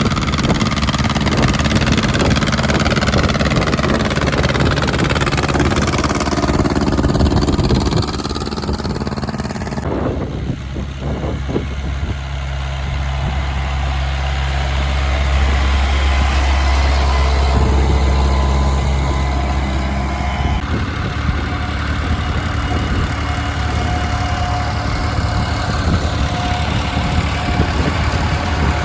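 Vintage tractor engines running, with the engine note shifting and falling in the first few seconds. The sound changes abruptly about ten seconds in, then holds a steady, deeper engine tone.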